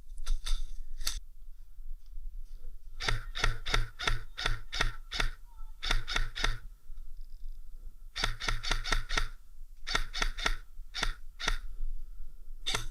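Airsoft guns firing in rapid strings of sharp shots, several a second, with short pauses between strings.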